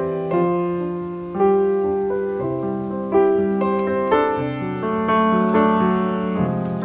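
Unhurried background piano music: chords struck and left to ring, a new one every second or so.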